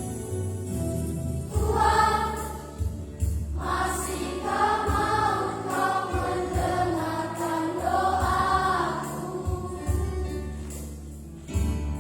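Children's Sunday-school choir singing a gospel song over instrumental accompaniment. The voices come in about a second and a half in, pause briefly, sing on, and drop out near the end, leaving the accompaniment.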